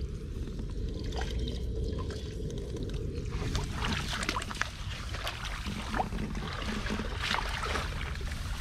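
Water splashing and trickling over a steady low rumble. Small irregular splashes become busier about three and a half seconds in.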